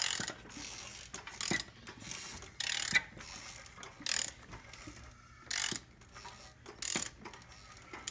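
A socket ratchet turning a Volvo D24T six-cylinder diesel over by hand at the crankshaft, with a short burst of ratchet clicking about every second and a half. The engine is being brought round to top dead centre to check the injection pump timing.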